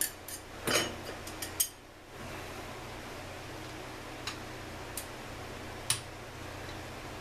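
Metal tools and small two-stroke engine parts clicking and clinking on a workbench during a teardown. There is a quick flurry of clicks in the first two seconds, then a few single clicks, over a steady low hum.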